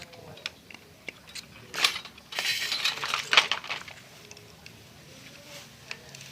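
Hand-tool work on a small model-boat propeller: light clicks and knocks, with a harsh scraping noise for about a second just after the two-second mark.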